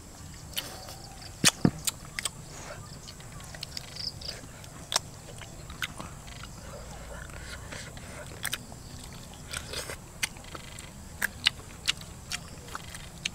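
Mouth sounds of people biting and chewing pieces of cooked snake: a string of irregular sharp clicks and crunches.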